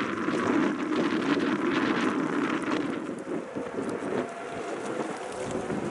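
Wind buffeting the microphone over the low running noise of a sightseeing boat's engine at the quay. The engine part is stronger in the first few seconds and then eases.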